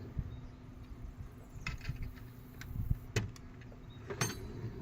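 A few scattered sharp metal clicks and clinks: hand tools being handled in a tool chest drawer.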